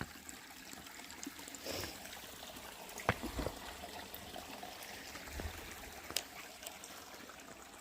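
A small woodland stream trickling steadily, with a couple of sharp knocks, the loudest about three seconds in.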